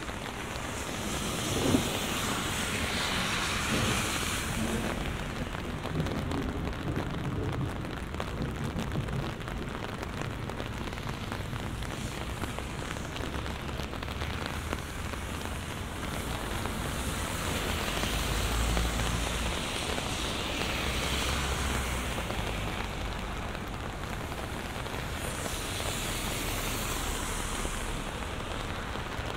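Heavy rain falling steadily on pavement and surfaces, with swells of hiss that come and go. A sharp knock comes about two seconds in, and a low rumble swells near the middle.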